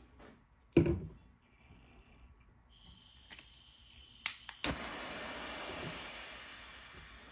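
Propane torch on a disposable propane cylinder: the cylinder is set down on a wooden bench with a thump, then its valve is opened and gas hisses. Two sharp clicks follow as it is lit, and a steady rushing of the torch burning slowly fades toward the end.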